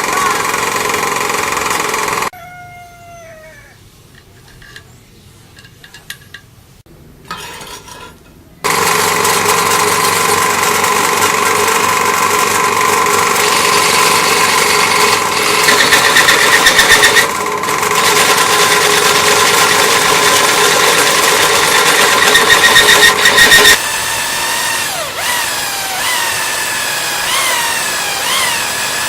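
Electric motor of a homemade lathe running with a steady hum. About two seconds in it is switched off and spins down with a falling whine, leaving a quiet spell with a few small knocks. It is started again about eight seconds later and runs on, louder in two stretches, and near the end its pitch swoops up and down several times.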